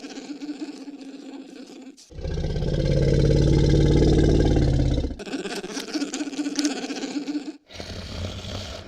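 Designed lizard-creature sound effect: a dry rattling chatter, then about two seconds in a loud, low growl lasting about three seconds, then more chattering and a shorter low growl near the end.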